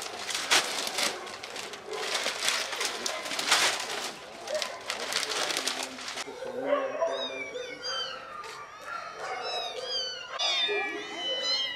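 Plastic sacks of pet food rustling and crackling as they are handled and dropped. About six seconds in this gives way to kittens meowing, many short high calls overlapping.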